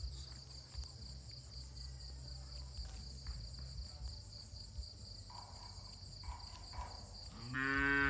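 Crickets chirping in a steady, pulsing high chorus, with a low background rumble and a few faint clicks. Near the end a cow gives one long moo, the loudest sound.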